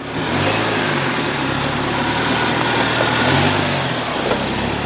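Ford Bronco engine running over a steady rushing noise, its note rising and easing back twice: about half a second in, and again a little after three seconds in.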